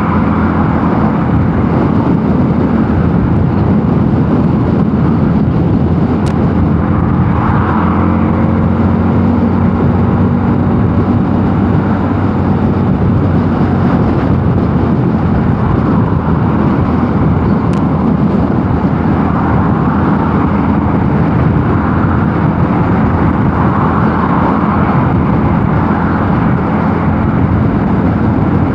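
Mondial Nevada 250 motorcycle engine running at a steady cruise while riding, its tone holding level throughout.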